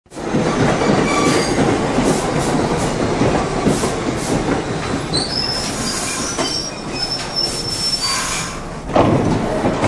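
A subway train running into a station with a steady rumble of wheels on rails. Its wheels squeal high and thin for a few seconds about halfway through, and a short louder rush of noise comes near the end.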